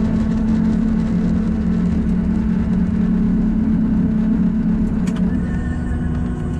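Cabin noise inside a Boeing 737-800 slowing after touchdown: the CFM56 engines' steady hum over the rumble of the wheels on the runway. There is a short click about five seconds in, and the noise eases slightly near the end.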